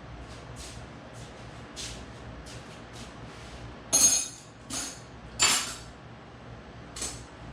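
Channel-lock pliers clicking and clinking on a gas bottle's fitting as it is connected and tightened: a run of short metal clicks, with two louder ringing clinks past the middle.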